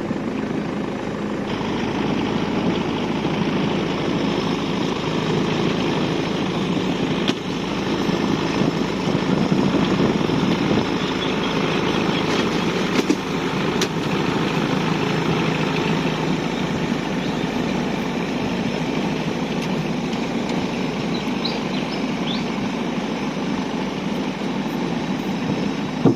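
Boat engine running steadily, with a couple of sharp clicks about halfway through.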